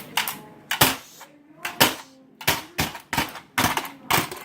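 Hard plastic toy pieces clacking and knocking in an irregular string of about a dozen sharp hits, sparse in the middle, as a toy bulldozer smashes into toy houses.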